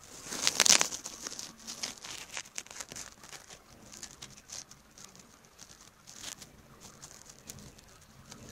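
Heavy rain in a thunderstorm pattering close to the phone in irregular sharp drops, after a loud hissing rush of noise in the first second that tails off.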